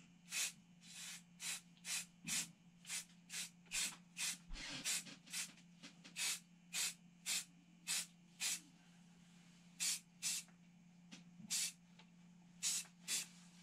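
Aerosol spray can of primer sprayed in about twenty short hissing bursts, roughly two a second at first and with longer gaps in the second half. A faint steady low hum runs beneath.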